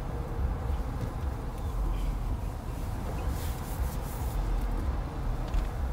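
Car engine idling while the car is stopped, heard from inside the cabin as a steady low rumble.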